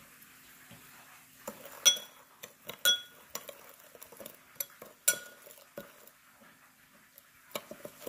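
A metal spoon stirring a dipping sauce in a cut-glass bowl, clinking and scraping against the glass. It starts about a second and a half in, with a few louder clinks that ring on briefly.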